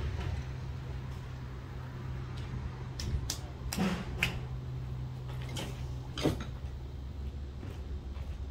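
Several knocks and clanks of boxed goods being moved around during unloading, over a steady low hum.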